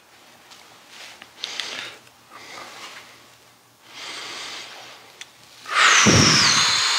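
A man breathing while holding a stretch: a few soft breaths, then a loud, rushing exhale near the end with a whistling note that falls in pitch.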